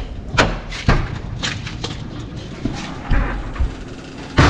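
Thumb-latch handleset of a wooden front door clicking as it is pressed and the door opened, followed by a few separate knocks and a loud thump near the end.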